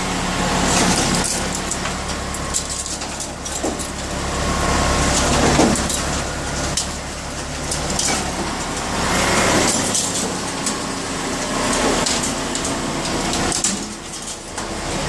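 Ameri-Shred AMS 300 industrial hard drive shredder running under load, its motor humming steadily while the cutters crunch and crack through hard drives at irregular intervals.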